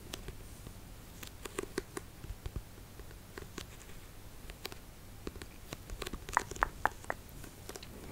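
Long fingernails tapping and scratching on a paperback book's cover and spine: scattered light clicks, then a quick run of four sharper taps near the end.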